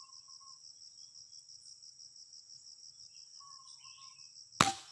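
Insects trilling in a steady rapid pulse, with two faint short whistled calls, then about four and a half seconds in a single sharp crack of an air rifle shot. The shot misses the pigeon.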